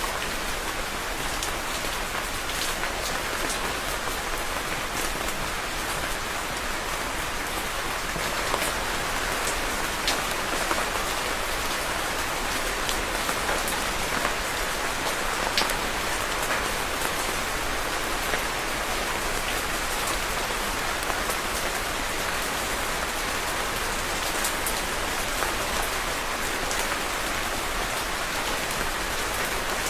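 Steady rain falling on a surface, a dense even hiss with scattered individual drops ticking sharply.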